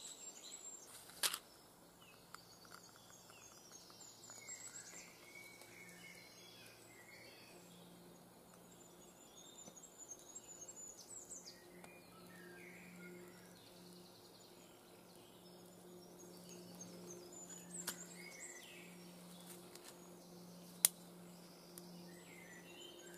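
A safety match struck once on its box about a second in, then faint birdsong over a low steady hum, with a few sharp clicks near the end.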